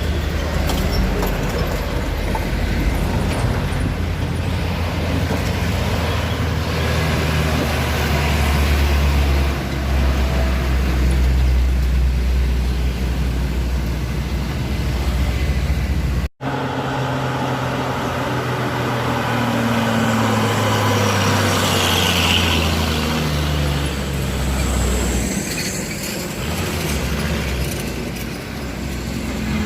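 Heavy truck engine running, with a brief complete dropout about halfway through; in the second half the engine note sinks slowly in pitch.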